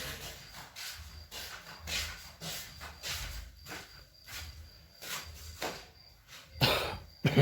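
Short, irregular scrapes of a spatula working polyester filler putty, made from whiting, resin and hardener, onto a fiberglass part, about two or three strokes a second. Two louder knocks come near the end.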